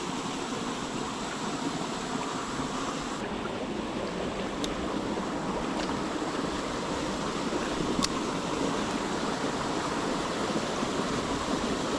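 Small creek's running water making a steady rush, with a few light clicks partway through.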